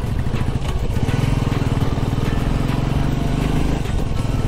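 Royal Enfield Classic motorcycle's single-cylinder engine running at an even pace while riding, with a steady, pulsing exhaust beat.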